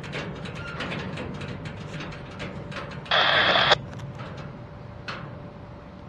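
Freight train rolling past, its wheels clicking rapidly over the rail joints above a steady low rumble. A short, loud hiss cuts in about three seconds in and stops abruptly.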